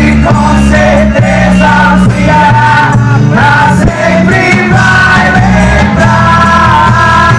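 Loud music with singing over a steady bass line.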